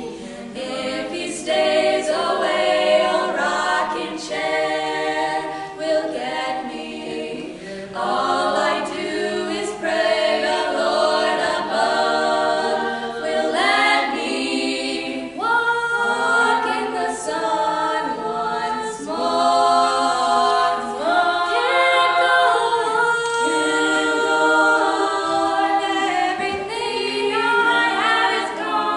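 A choir singing a cappella in chords: several voice parts holding and moving between sustained notes, with no instruments.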